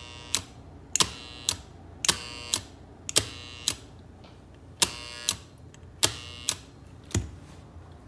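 A push button pressed and released about six times, with a latching impulse relay and a standard relay clicking as they switch: sharp clicks in pairs about half a second apart. In some pairs a faint buzz from an energised relay coil sounds between the two clicks.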